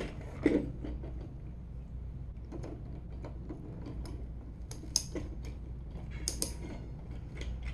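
Scattered light clicks and taps of a 3D-printed plastic windup car being handled while rubber bands are stretched onto its rear wheels.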